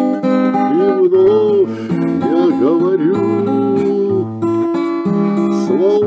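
A slow pop song's accompaniment between sung lines: strummed acoustic guitar under sustained chords, with a melody line that slides up and down in pitch.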